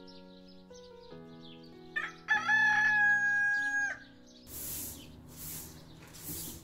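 A rooster crows once, loudly, about two seconds in, rising and then held for over a second. After it, a straw broom sweeps a tiled floor in three swishes, about a second apart.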